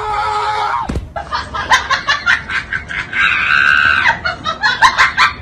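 A sharp thump about a second in, followed by a person laughing hard in quick, high-pitched bursts, with a held squeal midway.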